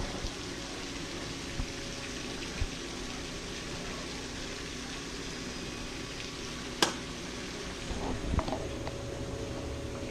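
Steady hiss and patter of a jet of water spraying into an above-ground pool, under a faint steady hum. A single sharp click comes about seven seconds in.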